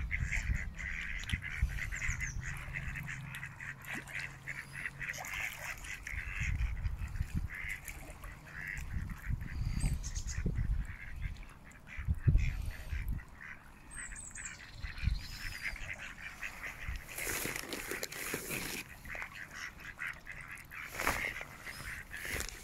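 A flock of mallards quacking and chattering on the water, many short calls overlapping without a break. Irregular low rumbles and thumps come and go underneath.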